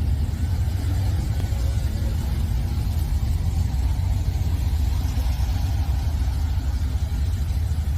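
Steady low rumble, even in level throughout, of the kind a running vehicle or wind on the microphone makes.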